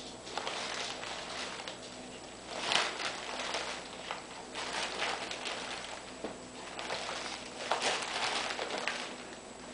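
Plastic tea-bag packets crinkling and rustling as a cat rolls and squirms on them in a wicker basket, in irregular bursts, loudest a little under 3 seconds in and again near the end.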